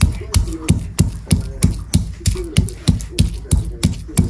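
Stone pestle (ulekan) pounding and grinding garlic and shallots on a flat stone cobek mortar, a steady rhythm of stone-on-stone knocks with low thuds, about three strokes a second.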